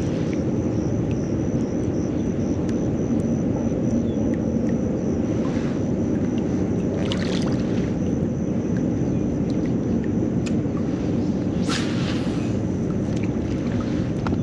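Steady low rushing noise of wind and water around a kayak, with three brief swishes about six, seven and twelve seconds in.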